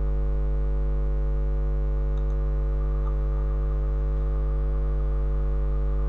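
Steady electrical mains hum with a stack of steady overtones, unchanging in level throughout.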